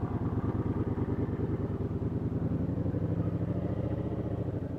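Motorcycle engine running steadily at low revs as the bike rolls slowly past.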